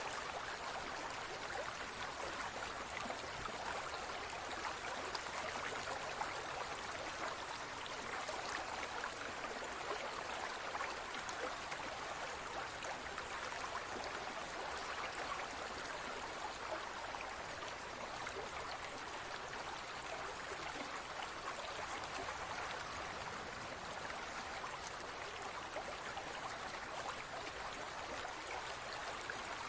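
Steady trickling and splashing of water in a large aquarium, with many small droplet-like ticks.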